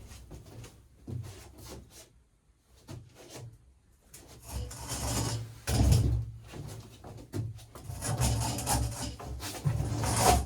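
Wooden drawers of a lathe stand sliding in and out, wood scraping on wood, with thumps as they shut. Only light knocks in the first few seconds, the sliding starting about four seconds in, with louder thumps around six seconds and near the end.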